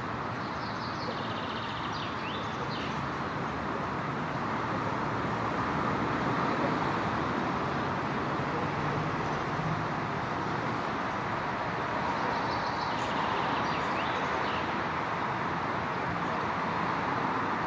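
Steady traffic noise from a road, with a small bird's high chirping calls twice: about a second in and again about two-thirds of the way through.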